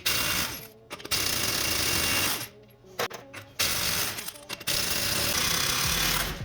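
3/4-inch impact gun with a 33 mm socket hammering in four bursts of about a second each, loosening the truck's front wheel lug nuts.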